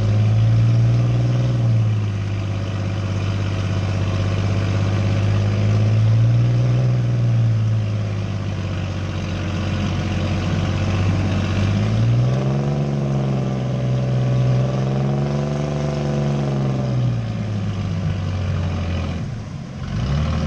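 Car engine running and being revved up and down, its pitch rising briefly about a second in and again around six seconds, then held higher for several seconds from about twelve seconds before dropping back near the end.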